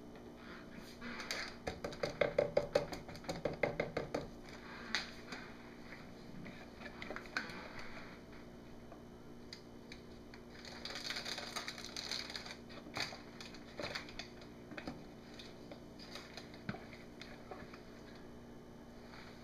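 Handling clatter of plastic measuring cups at a wooden soap mould: a quick run of rattling clicks and taps in the first few seconds, a scratchy scraping stretch about eleven seconds in, and scattered single knocks.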